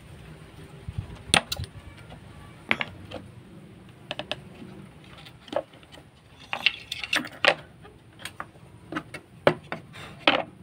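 Irregular light clicks, taps and clinks, a dozen or so in small clusters, from a hand fret saw's metal frame, a screwdriver and a cut-out wooden sign board being handled and set down on a wooden workbench.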